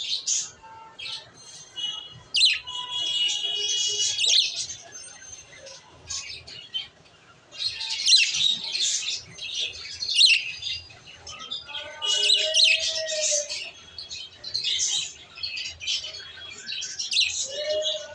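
Small birds chirping and twittering in quick bouts of high, overlapping calls with short pauses between, and a few lower curving calls mixed in.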